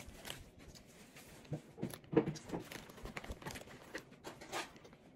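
Clear plastic bag crinkling and rustling in scattered short crackles as fingers pull cotton candy out of it, with a brief louder sound about two seconds in.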